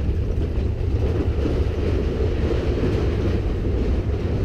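Big Thunder Mountain Railroad mine-train roller coaster running along its track, heard from on board: a steady low rumble.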